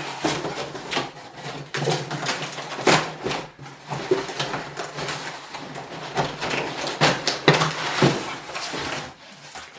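Cardboard and plastic packaging being handled while unboxing: rustling and scraping with a string of short knocks. The loudest knocks come about three seconds in and again around seven to eight seconds in.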